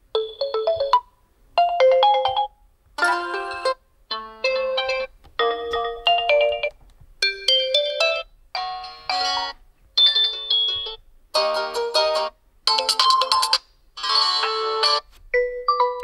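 Realme C25s built-in alarm tones previewed one after another: about a dozen short electronic melodies, each a different tune, each cut off after about a second as the next tone is selected.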